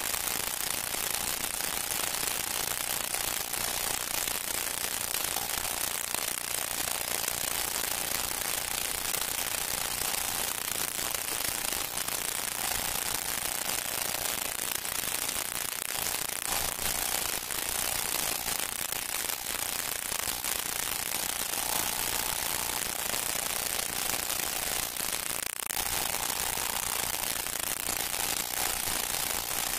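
Steady hiss and crackle of an old recording, with faint tones that come and go underneath.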